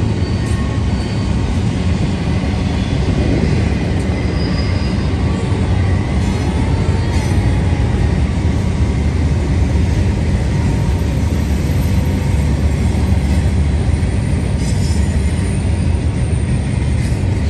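BNSF double-stack intermodal container train rolling past, a loud, steady rumble of wheels on rail.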